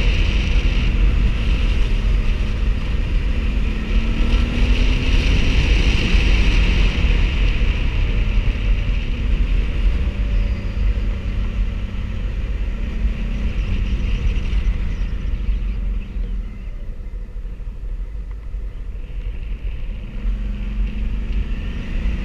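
Motorcycle running along the road, its engine under a steady low rumble of wind and road noise. The engine note rises briefly about four seconds in, and the sound eases off for a few seconds near the end before picking up again.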